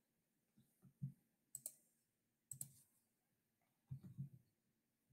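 Faint, scattered clicks of a computer mouse and keyboard keys while a number is entered into an on-screen answer box, about five clicks spaced irregularly, a few close together near the end.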